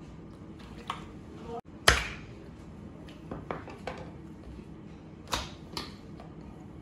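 Raw squid tubes slapping and dropping wetly onto a plastic cutting board, with a few lighter taps. The loudest slap comes about two seconds in.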